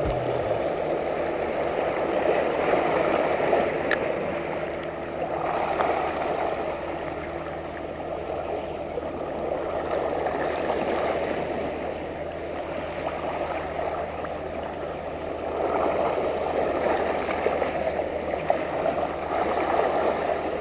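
Sea water washing and splashing among shoreline rocks, swelling and easing every few seconds, with a single faint click about four seconds in.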